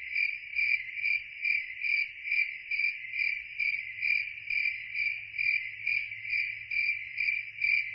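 Cricket chirping steadily, about two chirps a second, cutting off suddenly near the end.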